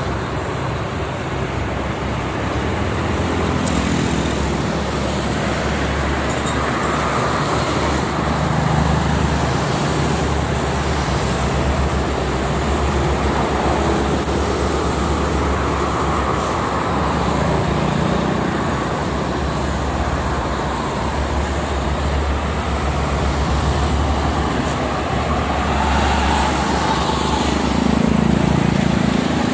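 Heavy motorway traffic, mostly trucks, passing in a steady stream of tyre and engine noise that swells as each close group of vehicles goes by, loudest near the end.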